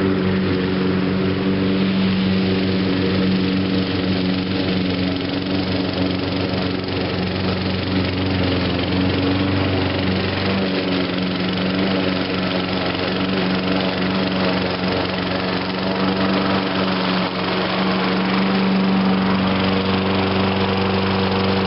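Toro Recycler push mower's 6.5 hp Tecumseh single-cylinder engine running steadily with a constant pitch.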